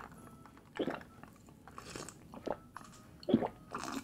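Person chewing a mouthful of instant noodles close to the microphone, with a few short wet mouth sounds spaced about a second apart.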